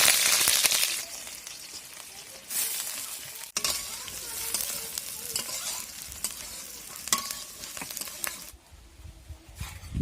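Food sizzling and frying in hot oil in a pan, loud at first and easing after about a second, flaring again a little later, with the clicks of stirring; the sizzle stops shortly before the end.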